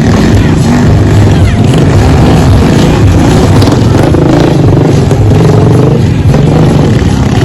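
Motor vehicle engine running loudly, its pitch rising and falling as it revs.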